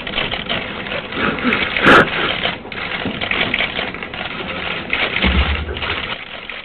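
Rapid, overlapping clicking of press photographers' camera shutters, with a man's muffled crying into a handheld microphone. A single sharp knock comes about two seconds in.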